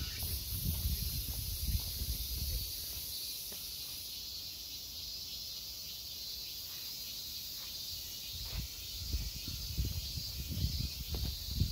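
Steady high-pitched buzz of insects in the surrounding trees, with irregular low thuds in the first few seconds and again near the end.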